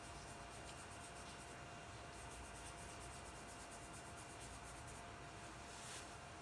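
Faint soft rubbing of a brush stroking over charcoal on drawing paper, blending the shading of the hair.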